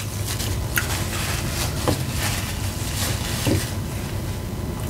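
Close-miked crunching and crackling of a tortilla chip scooping taco salad in a plastic clamshell container, many small crackles over a steady rustle.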